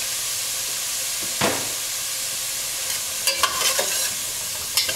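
Diced onion and shallot sizzling in oil in a metal pot, stirred with a metal spatula. The spatula knocks the pot once about a second in, then scrapes and clicks across the pot bottom from about three seconds in.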